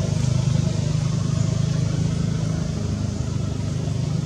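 Steady low rumbling hum that holds unbroken throughout, with a fainter hiss above it.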